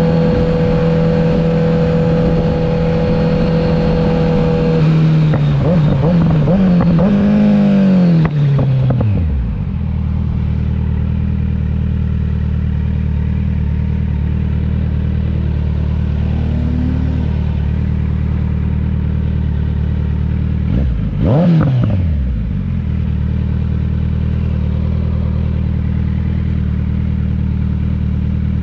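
Kawasaki Z900's 948 cc inline-four through an aftermarket CS Racing exhaust, held at steady high revs for about five seconds, blipped a few times, then dropping to a steady idle. About two-thirds of the way through it gives one quick throttle blip and settles back to idle.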